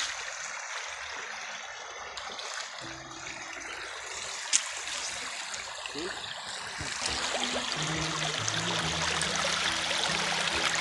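Shallow stream water running and trickling over rocks, with one sharp click about four and a half seconds in. Background music with low held notes fades in partway through and is louder from about seven seconds in.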